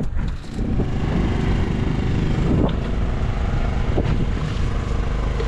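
Fishing boat's engine running steadily at a constant speed, a low hum with water and wind noise around it.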